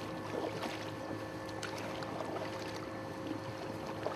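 Wooden paddles dipping and splashing in floodwater as a small boat is paddled along, with scattered knocks against the boat and a steady hum underneath.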